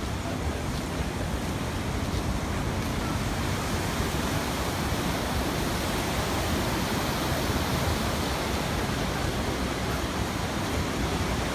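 Sea waves washing against the seafront, a steady rushing noise without breaks, with some wind mixed in.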